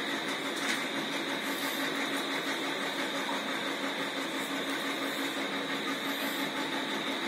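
Steady hum and hiss of background noise, even throughout, with no distinct events.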